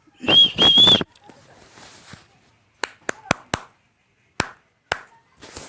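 Pet parrot giving a loud two-part call in the first second, followed by a series of about seven sharp, separate clicks.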